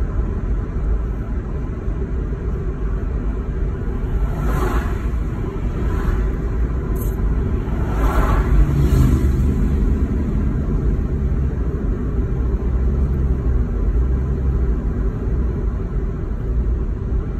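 Steady low road and engine rumble heard inside a moving car's cabin, with oncoming vehicles swishing past a few times, the loudest about eight seconds in.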